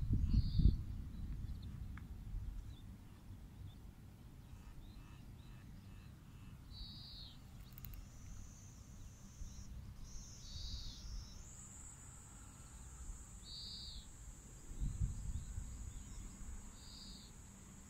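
A cicada begins a high, steady buzzing drone about eight seconds in and keeps it up to the end, over scattered short bird calls repeated every few seconds. Low rumbles come at the start and again near the end.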